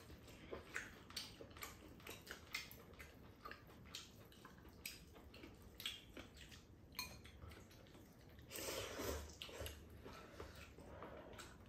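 Quiet eating sounds: instant buldak noodles being slurped and chewed, with chopsticks and a metal fork clicking against the bowls. A somewhat longer, louder slurp comes near the end.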